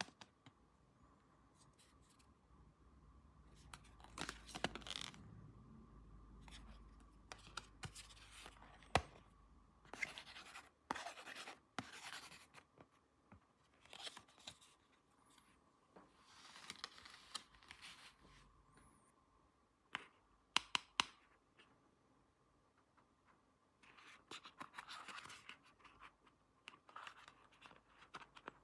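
Hands handling small toy pieces and their packaging: scattered scratchy scrapes and rustles with occasional sharp clicks, broken by short pauses.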